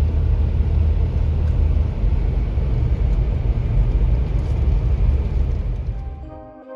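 Car cabin road noise: a steady low rumble from a vehicle driving slowly on a snow-covered interstate. It fades out near the end as music begins.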